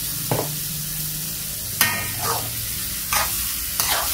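Shelled ambal shellfish stir-frying in a metal wok: a steady sizzle, with a metal spatula scraping against the pan about five times.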